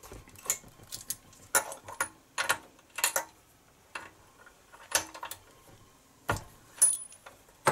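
Scattered metallic clicks and clinks of a spark plug socket and T-handle wrench on the cylinder head of a 1970 Briggs & Stratton 2 hp engine as the spark plug is worked loose. The taps come irregularly, with quiet gaps between them.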